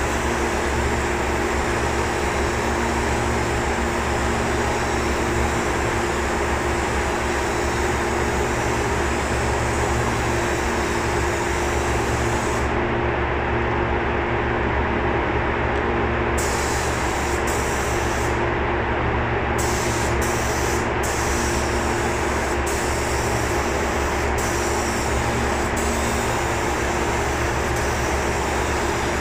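Steady hum and hiss of running shop machinery, with several unchanging tones and no change in level throughout.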